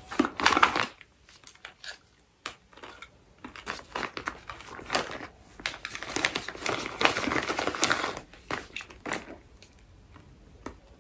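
Plastic packaging crinkling and rustling in irregular bursts with small clicks as a plastic pouch is handled and cut open with scissors.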